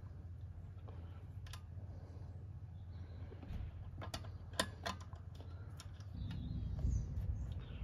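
Scattered light clicks and taps of a stainless steel tube manifold and its fittings knocking against the cylinder valves as it is wiggled into place by hand, with a cluster of sharper clicks about four to five seconds in. Under them runs a low steady rumble that grows louder near the end.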